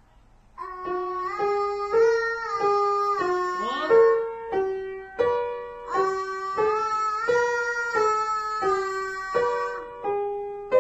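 Upright piano being played: a steady, repeating figure of notes and chords, struck about every two-thirds of a second, starting about half a second in.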